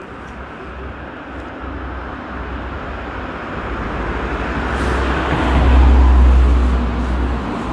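A car passing close by on the street, its engine and tyre noise swelling to its loudest about six seconds in, then easing off.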